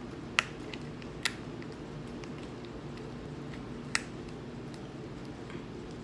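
Eating sounds close to the microphone: three sharp mouth clicks or smacks and a few fainter ticks while chewing, over a steady low hum.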